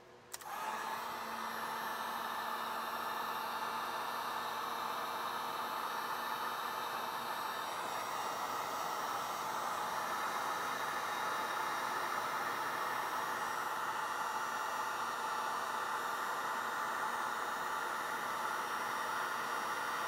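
Wagner electric heat gun switching on about half a second in and running steadily, its fan blowing a constant rush of hot air to shrink heat-shrink tubing.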